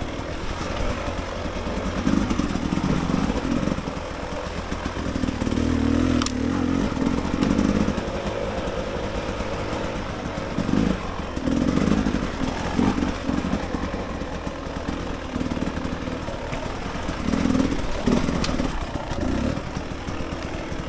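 Dirt bike engine on a trail ride, its note rising and falling in repeated surges of about one to two seconds as the throttle is opened and closed, over steady rushing wind noise and a few sharp knocks.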